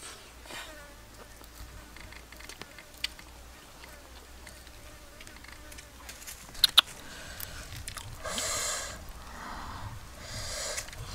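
A fly buzzing close by, passing twice for about a second each in the last third, over quiet clicks and handling noises of hands picking at fish on a metal tray. Two sharp clicks come a little before the buzzing and are the loudest sounds.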